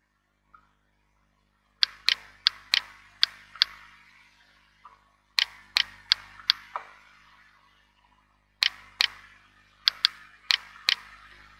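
Sharp clicks in three quick bursts of five or six, about three a second, each with a short ring after it.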